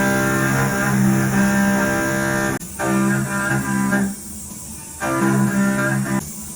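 Background music: low held string or guitar notes in phrases about a second long, with short breaks between them.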